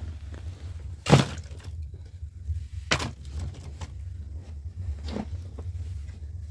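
Three sharp cracks or knocks about two seconds apart, the first the loudest, with fainter clicks between them over a steady low rumble.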